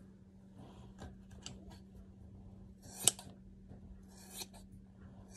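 Scissors snipping through a Shih Tzu's long fur: a few small clicks, then one sharp loud snip about three seconds in and another cut about a second later.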